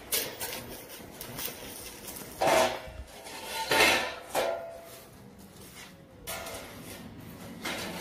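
Steel frame sections being handled and knocked together: a few sharp metal clanks, the loudest about two and a half and four seconds in, with a short ring after each.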